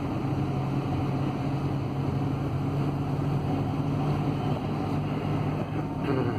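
Ford Transit van's diesel engine running steadily, heard inside the cab together with road noise; its low note drops slightly near the end.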